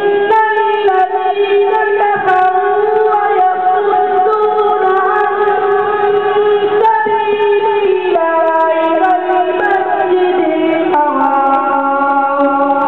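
A boy's solo voice chanting a devotional recitation unaccompanied, in long held melodic notes that shift pitch every few seconds.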